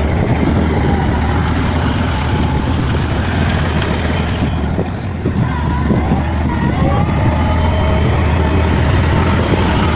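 Bulldozer's diesel engine running under load with steady mechanical clatter, dipping briefly about five seconds in.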